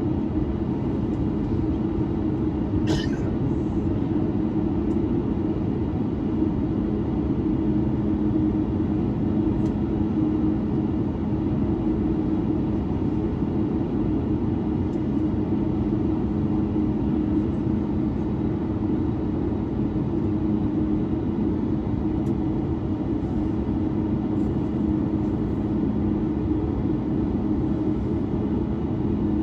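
Steady cabin drone of a Boeing 737-9 Max with its CFM LEAP-1B engines running: an even rush of noise with a low, constant two-note hum. A brief high-pitched sound cuts through about three seconds in.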